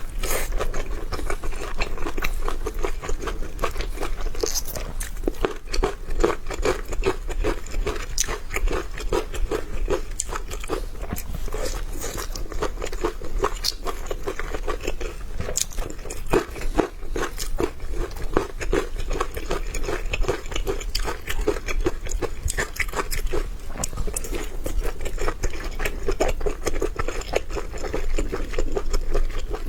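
Close-miked chewing and biting of steamed dumplings: a continuous run of wet mouth clicks and smacks.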